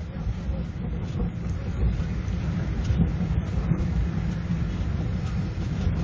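Steady low rumble with a hiss over it: blizzard wind and the engines of cars stuck in a snowbound traffic jam.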